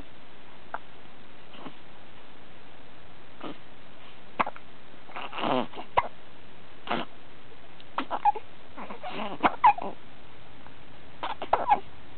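Repeated hiccups, short and sharp, coming about every second or so, mixed from about five seconds in with short whining cries from the hungry hiccuping subject.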